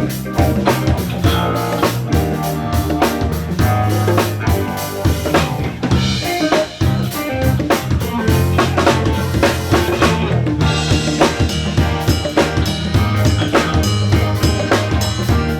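Live band playing at a sound check: a drum kit keeps a steady beat of snare and bass drum hits over held bass notes and other instruments.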